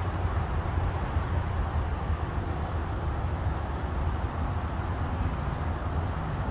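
A vehicle engine running steadily nearby, heard as a continuous low rumble.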